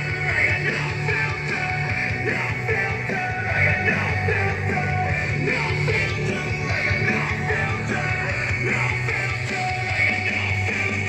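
A recorded song played back through a Peavey stage monitor, a box fitted with a woofer and a tweeter, as a sound-quality test. The music runs continuously with a steady bass line.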